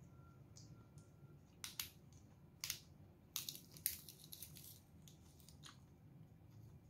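Crisp crunching of raw leafy greens being bitten and chewed. Single crunches come about two seconds in and again a second later, then a dense run of louder crunches, then one last crunch near the end.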